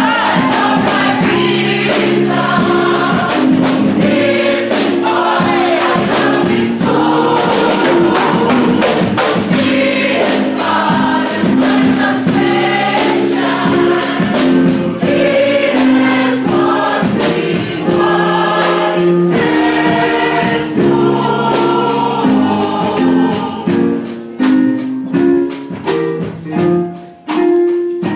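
Choir singing a gospel worship song over instrumental accompaniment with a steady percussion beat. Near the end the singing drops away, leaving short plucked notes.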